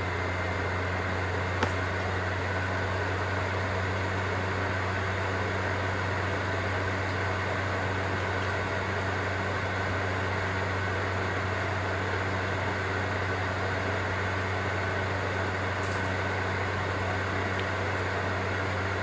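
Steady machine hum: a low drone with a faint high tone above it, and a single small click about a second and a half in.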